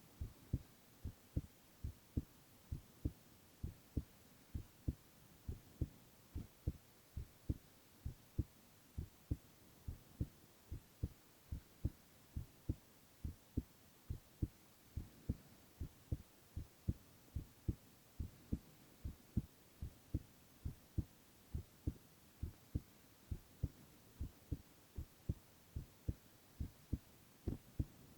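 A young man's heartbeat: an even, unbroken rhythm of low double thumps (lub-dub) over a faint steady hiss.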